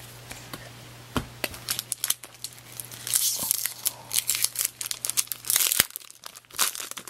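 Foil wrapper of a 2002 Bowman baseball card pack crinkling and tearing as it is ripped open, in dense crackly rustles. A couple of light knocks come about a second in.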